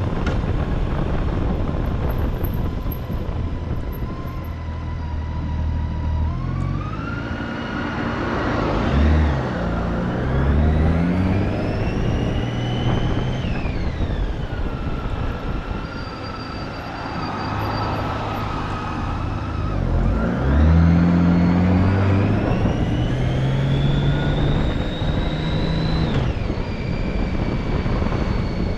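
Motorcycle engine and wind noise while riding. The engine pitch climbs steadily through two long accelerations; each falls off abruptly, once about halfway through and again near the end.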